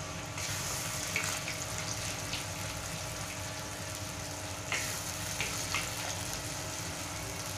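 Chopped onions sizzling as they fry in hot oil in a metal kadai, a steady hiss. A wooden spatula stirs them, scraping and knocking against the pan a few times.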